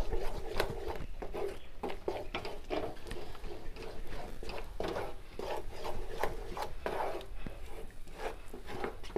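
Steel spoon scraping and stirring a thick, doughy coconut and milk-powder mixture around a non-stick pan, in a run of repeated rubbing strokes. The mixture is being worked until it comes together and stops sticking to the pan.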